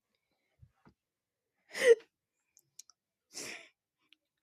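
A tearful person sniffling: two short breathy sniffs about a second and a half apart, the first louder with a brief catch of voice, with a few faint clicks before them.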